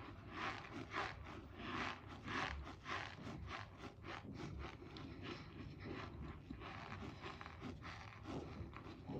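Close-up crunching of a bowl of cornstarch: a steady run of crisp crunches, about two a second at first, then quicker and closer together from about three seconds in.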